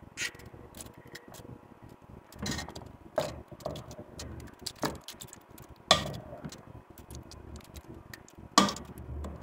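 Wooden spoon stirring a thick stew in an aluminium pan, with irregular knocks and scrapes against the pan's sides and bottom. The loudest knocks come about 6 and 8.5 seconds in.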